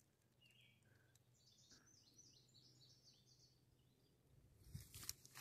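Near silence, with faint short bird chirps repeating for a few seconds, then a few soft rustles near the end.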